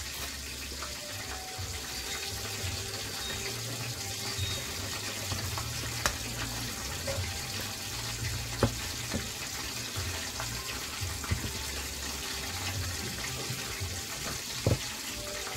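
Chicken frying in oil, a steady sizzling hiss, with now and then a sharp click of a metal hand masher against a stainless steel bowl as soft boiled vegetables are mashed.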